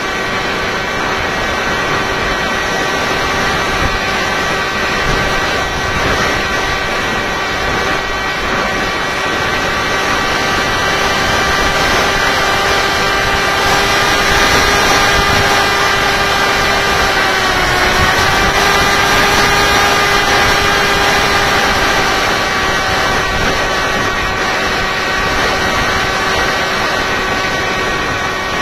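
Electric motor and propeller of a Tek Sumo FPV flying wing, heard from its onboard camera: a steady whine over a rush of air noise. The whine dips briefly in pitch about two-thirds of the way through, then settles back.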